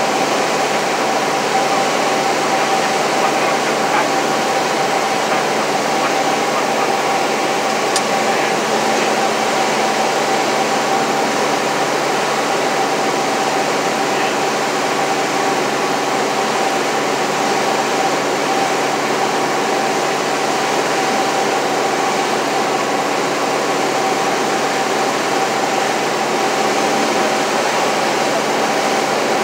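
Light aircraft's piston engine and propeller running steadily in flight, heard inside the cabin as an even noise with a constant hum. A single faint click comes about eight seconds in.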